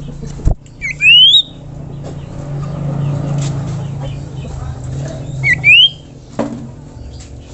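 Sirtu songbird giving two loud, brief rising whistles, one about a second in and one about four and a half seconds later, over a steady low hum.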